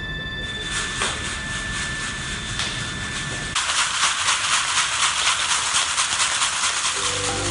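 Harsh noise from an improvised experimental soundscape, a dense hiss with a fast pulsing. About halfway through it switches abruptly to a brighter, thinner hiss with the low end gone.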